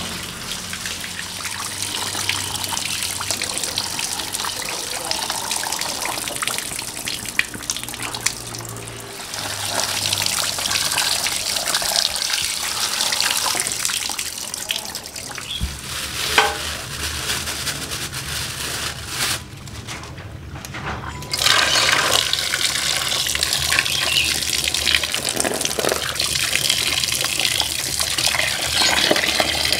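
Tap water running and splashing onto food being rinsed by hand, first cut taro stems in a bamboo basket, later raw chicken in a metal pot. The water drops away briefly about two-thirds of the way through, then returns louder.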